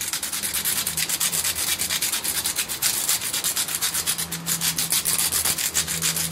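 Salt mill being twisted to grind salt over a pan, a rapid, even run of dry grinding clicks.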